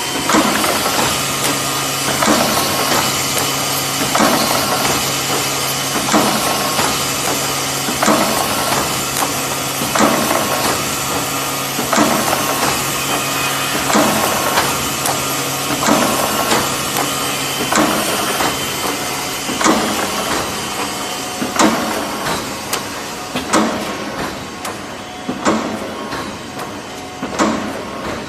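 Automatic wire mesh welding machine running, with a steady hiss and a sharp knock of its welding stroke about once a second. A low hum under it stops about two-thirds of the way through.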